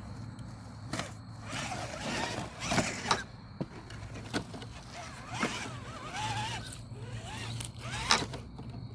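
RC4WD TF2 scale crawler truck driving over rough ground: its electric motor and gears whine up and down with the throttle, with a few sharp clicks and scrapes from the tires and chassis.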